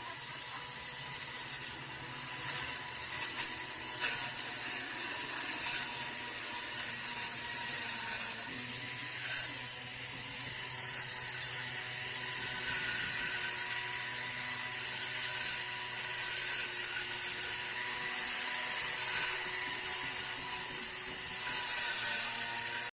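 Homemade grass cutter driven by a sewing-machine electric motor, running steadily with a whine and a high hiss from the spinning motor and blade.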